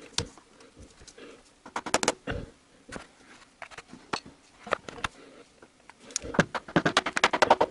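Steel tools knocking and prying at the seam of a VAZ 2111's stamped-steel oil pan to break it loose from its gasket: scattered sharp knocks and clicks, then a quick run of them near the end.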